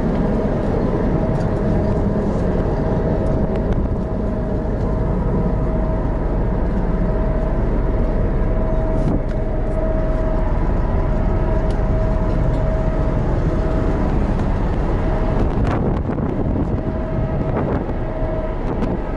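Car ferry's engines running steadily, a deep rumble with a steady hum over it, as heard on the open vehicle deck while the ferry gets under way.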